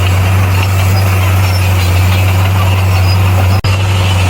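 Bulldozer's diesel engine running steadily with a deep constant hum, broken by a momentary gap in the sound about three and a half seconds in.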